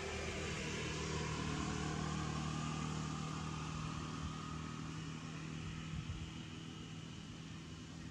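Steady drone of a motor vehicle engine, growing a little louder over the first few seconds and then slowly fading.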